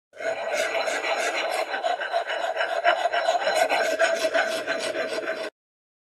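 Woodworking rasp filing wood in quick, continuous scraping strokes, stopping abruptly about five and a half seconds in.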